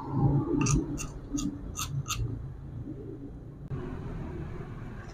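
A spoon scraping through thick peanut paste in a stone mortar, with a quick series of about six short, bright clicks or chirps in the first two seconds, then only faint handling noise.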